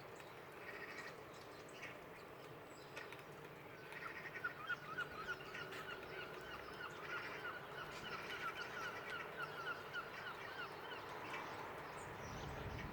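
A bird calling outdoors: a long run of quick, repeated pitched notes, about four a second, starting about four seconds in and stopping a couple of seconds before the end, with a few shorter calls before it.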